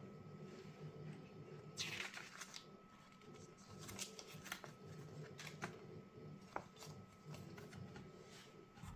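Paper leaflet and printed card being handled and flipped: soft paper rustling with scattered small crinkles, the loudest rustle about two seconds in.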